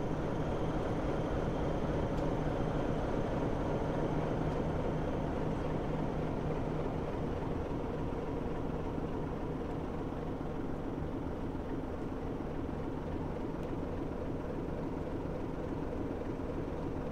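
Sulzer diesel engine of the NSU-class diesel-electric locomotive NSU 52 idling steadily, a little quieter from about halfway through.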